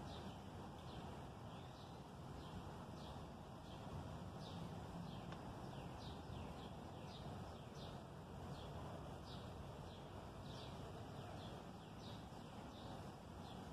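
Faint outdoor birdsong: short, high, falling chirps repeated about twice a second, over a low, steady background hum.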